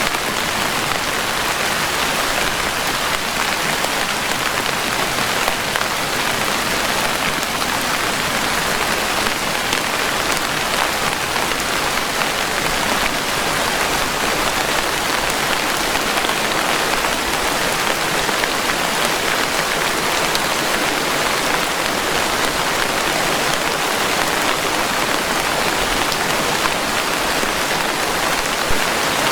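Steady, even rainfall: a dense, constant hiss of raindrops with no thunder.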